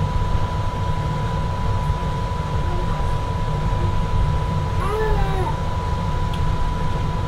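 Frankfurt Airport SkyLine people-mover train running on its elevated guideway: a steady low rumble with a constant high whine, and a brief rising-and-falling squeal about five seconds in.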